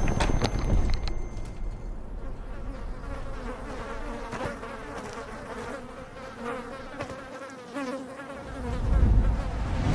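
Insect-like buzzing: a steady drone with a wavering pitch that grows louder near the end.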